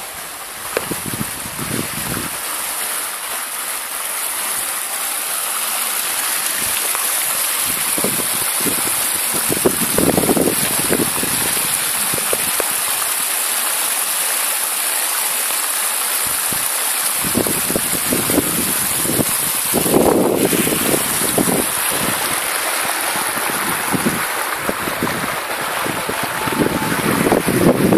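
Water splashing down a small rock cascade into a pebbled stream: a steady rushing that grows louder over the first several seconds, with occasional low thumps.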